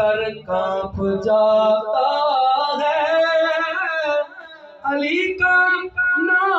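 A man's voice singing a Punjabi manqabat (devotional praise of Mola Ali) unaccompanied into a microphone, with long wavering held notes, a short break about four seconds in, then shorter phrases.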